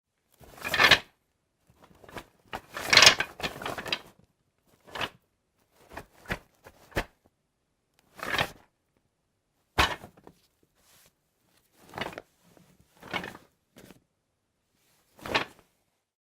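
Croquet bag being handled: separate bursts of rustling and shuffling, about ten in all with silent pauses between, and one sharp knock about ten seconds in.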